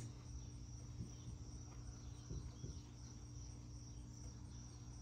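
Faint, steady high-pitched insect song, a thin continuous trill, over a low steady hum.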